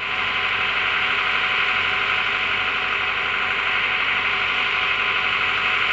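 Steady running noise of the parked electronic-warfare trucks' engines: a constant, even hiss with a faint steady hum underneath.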